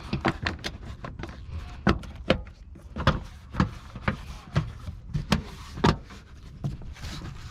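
An irregular series of sharp clicks and knocks, about a dozen spread over several seconds, over a low steady rumble.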